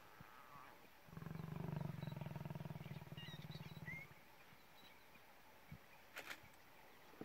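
Lion giving a low, pulsing rumble for about three seconds, starting about a second in. Faint bird chirps sound over it, and there is a sharp click near the end.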